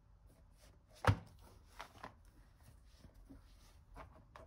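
One sharp knock about a second in, then a few lighter clicks and taps: small objects being handled and set down on a workbench.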